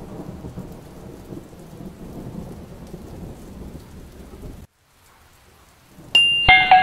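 Steady rain with low rumbling thunder, cutting off suddenly about four and a half seconds in and leaving a fainter hiss. Near the end comes a short, loud, bright chime of several pitches.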